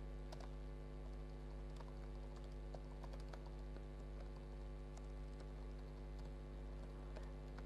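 Faint typing on a laptop keyboard: irregular key clicks, with a steady hum underneath.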